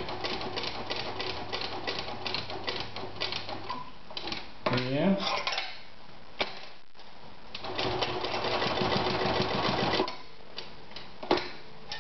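Veritas 8016/22 electric sewing machine stitching through thick belt leather. It runs in a burst of regular needle strokes, about five a second, for the first four seconds. After a pause it makes a second, denser run between about eight and ten seconds in, with a couple of single sharp clicks.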